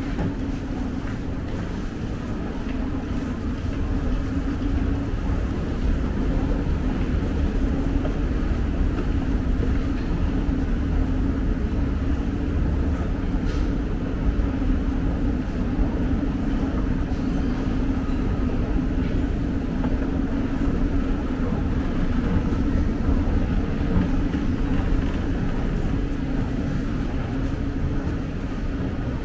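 Moving escalator's steady mechanical hum and rumble, louder from about four seconds in and easing off near the end.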